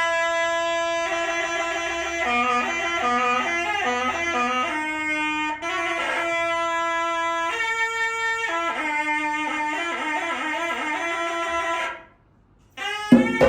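A solo shawm-like double-reed wind instrument, typical of the serunai that leads a wayang kulit ensemble, plays a melody of held and quick notes. It breaks off about twelve seconds in, and the ensemble with its drums comes in just before the end.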